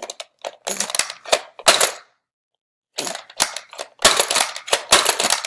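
Nerf Strongarm blaster's plastic mechanism being worked by hand: irregular hard plastic clicks and clacks in short bursts, a pause, then a quick run of clicks near the end.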